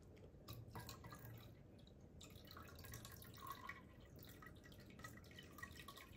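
Faint, irregular dripping and trickling of water in a reef aquarium.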